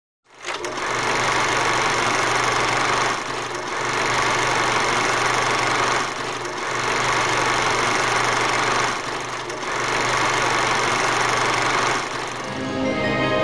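A steady, loud mechanical whirring noise, dipping briefly about every three seconds, that gives way to music near the end.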